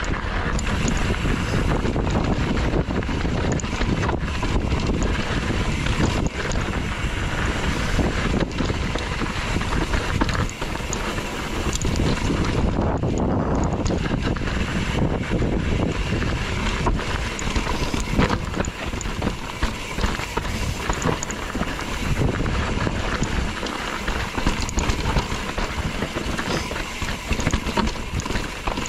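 Wind buffeting the microphone of a camera riding along on a mountain bike, over frequent knocks and rattles from the bike jolting across rough trail.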